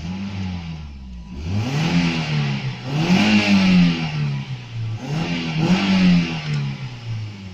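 Toyota Celica 1.8 VVT-i's four-cylinder engine with its stock exhaust, heard from inside the cabin, revved from idle while parked. A short blip comes first, then two longer swells rise and fall before it drops back to idle.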